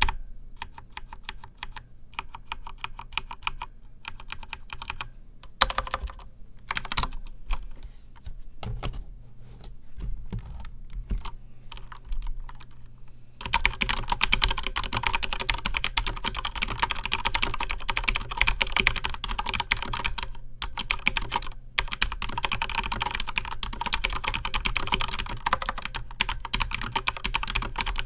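Corsair K95 RGB Platinum mechanical keyboard with Cherry MX Speed Silver linear switches being typed on. Keystrokes come in short runs with pauses and a couple of louder single strokes, then from about halfway the typing turns fast and continuous.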